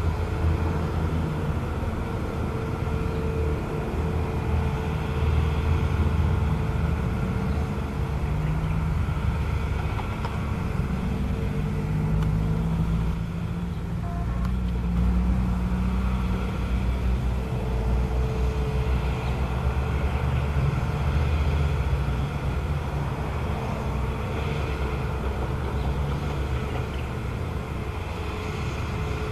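Hitachi hydraulic excavator's diesel engine running under load as the boom and bucket work: a steady low drone that swells and eases, with a higher steady whine that comes and goes.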